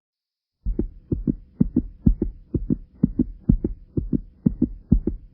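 Human heartbeat, a steady lub-dub of paired low thumps at about two beats a second, starting after a brief silence, over a faint steady hum.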